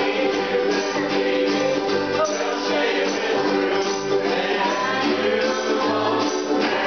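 Ukuleles, a banjo ukulele and an acoustic guitar strummed together in a steady rhythm, with a group of voices singing along.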